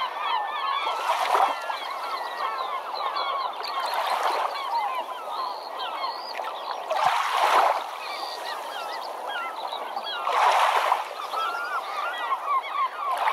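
Many birds calling continuously at once, a dense chatter of short chirps, with swells of rushing noise about every three seconds.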